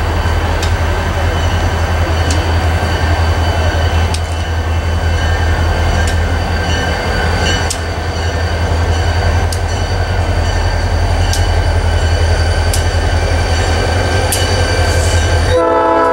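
EMD SD40-2 diesel locomotive approaching and passing at low speed, its 16-cylinder two-stroke engine running with a steady low rumble and light clicks from the wheels over rail joints about every two seconds. Its horn starts to blow just before the end.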